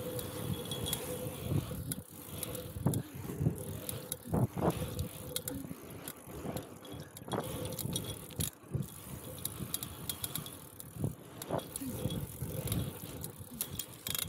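Mountain bike ridden hard over a tarmac pump track: tyres rolling on the asphalt in a fluctuating rumble, with frequent clicks and rattles from the bike as it pumps over the rollers and berms.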